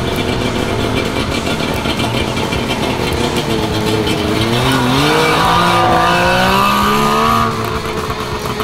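Suzuki Jimny SJ10's three-cylinder two-stroke engine running under way, its pitch rising steadily as it revs up from about three seconds in, then dropping back sharply about a second before the end.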